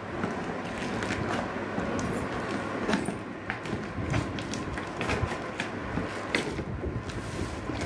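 Scissors slicing along packing tape on a cardboard carton, with scattered sharp clicks and the rustle of tape and cardboard.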